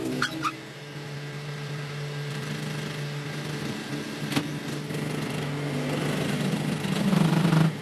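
A machine motor running with a steady hum, growing louder near the end, with a couple of light knocks at the start and a sharp click about four and a half seconds in.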